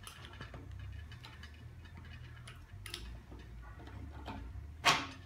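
Small clicks and taps of metal parts being handled and fitted on a chrome rod inside a visible gas pump's glass cylinder, with one sharp, louder clack near the end, over a low steady hum.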